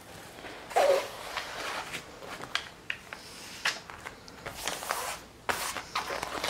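Stiff diamond-painting canvas and its plastic cover film crackling and rustling as they are bent back and smoothed by hand, in irregular bursts with a few sharp crinkles.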